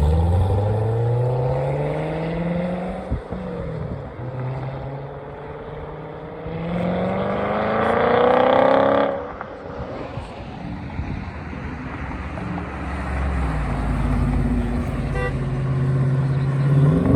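Car engines accelerating hard as cars pull away. The exhaust note climbs in pitch twice, the second pull louder and ending abruptly about nine seconds in, as if the driver lifted off. A lower engine rumble follows, and another car starts revving up near the end.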